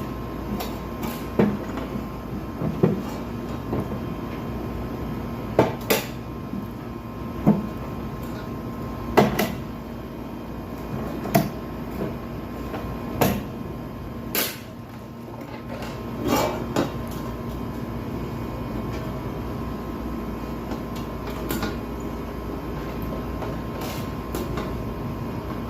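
Irregular knocks and clunks, roughly one every one to two seconds, over a steady hum. The knocks stop about two-thirds of the way through, leaving only the hum.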